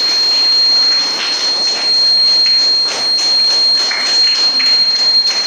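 The piezo buzzer of a transistor water-level indicator sounds one steady, high-pitched tone: the alarm that the water in the glass has reached the top level. A background hiss with scattered light taps runs under it.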